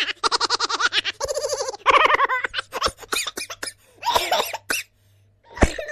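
A string of comic vocal sound effects: fast, pulsing laugh-like chatter and short squeaky voice bursts, with a quick run of clicks in the middle and a sharp thump near the end.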